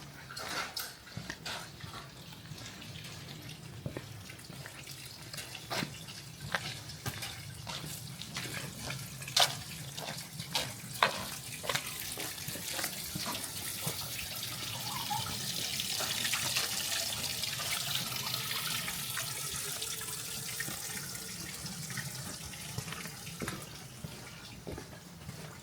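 Running water: a steady splashing hiss that swells toward the middle and then eases off, with scattered sharp ticks and knocks mostly in the first half.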